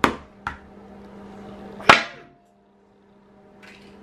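Plastic Hatchimals CollEGGtibles eggshell being cracked open by hand: a sharp snap at the start, a smaller one half a second later, and a loud crack about two seconds in.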